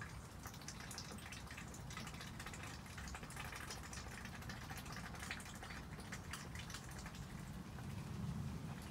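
Light rain: scattered raindrops ticking and dripping irregularly, over a steady low background hum.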